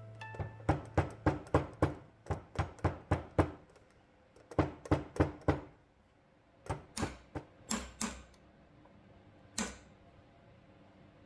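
Quick runs of hammer taps on the steel spindle and quill of a Rockwell-Delta drill press as it is put back together with new spindle bearings. About a dozen taps come in the first few seconds, then two shorter runs of four or five, and a single tap near the end.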